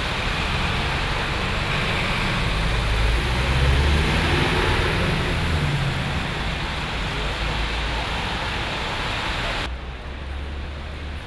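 Rain and traffic on a wet city street: a steady hiss that swells about four seconds in as a vehicle passes on the wet road. Near the end it changes to a duller, lower rush of rain falling into a flooded puddle.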